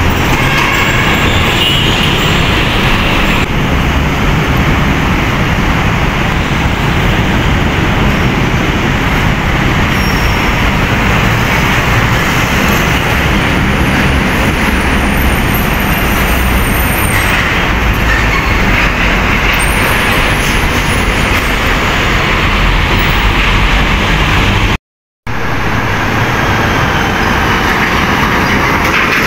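Heavy road traffic with container tractor-trailers passing close by: diesel engines and tyre noise, loud and steady. Near the end the sound cuts out for a moment, then resumes.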